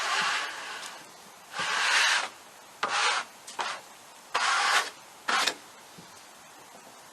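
A run of about six short, uneven scraping strokes, wood rubbing over wood.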